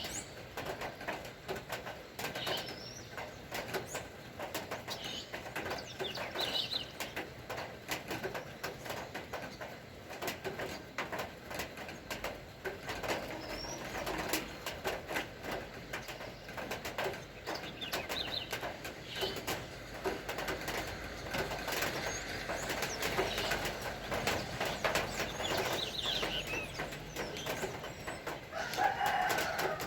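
Rain pattering in a steady stream of drop ticks, with birds giving short chirps several times.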